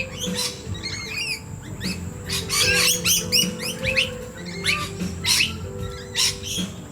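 Several small birds chirping and calling in quick, overlapping short notes, busiest about halfway through, over background music with long held notes.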